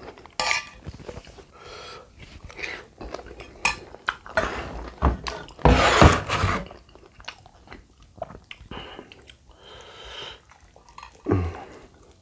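Close-up chewing and mouth sounds of someone eating lontong padang, with light clinks of a metal spoon on a plate. About six seconds in comes a louder clatter as a ceramic bowl is handled on the table.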